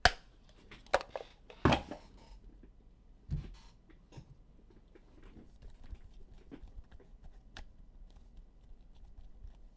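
Four sharp taps and knocks in the first few seconds, then light rustling and small ticks: trading cards and plastic card holders being handled and set down on a table.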